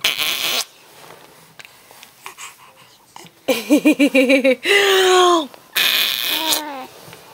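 Raspberries blown against a baby's skin: a short buzzy blow at the start, then about halfway through three longer buzzing blows with a wobbling, falling voiced tone.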